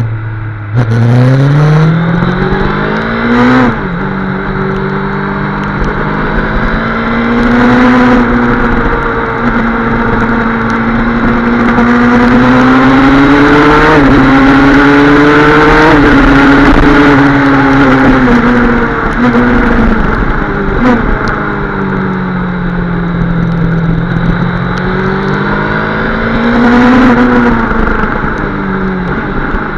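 Rally car engine at full pace, heard from onboard. The revs climb steeply in the first few seconds and drop sharply about three and a half seconds in, then rise and fall with the throttle through the corners. It is loudest in a long pull around the middle.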